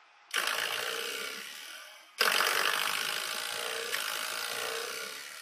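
Coiled-spring door stopper flicked twice by a cat's paw, each flick a sudden buzzing twang that rings on and dies away over about two seconds; the second flick is louder.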